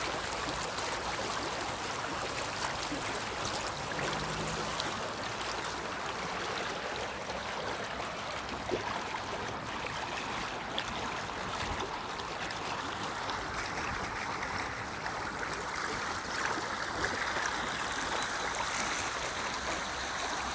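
Stream current running steadily: an even, continuous rush of flowing water.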